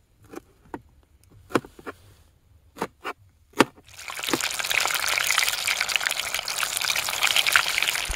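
About eight sharp snips as coriander is cut, then, from about four seconds in, hot oil in a camping pot deep-frying batter-coated chicken leg pieces: a loud, steady sizzle.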